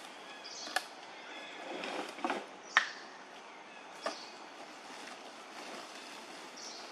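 A few sharp crackles and clicks of a thin plastic water bottle being gripped and handled by a macaque, the loudest about three seconds in, over a steady outdoor background hiss.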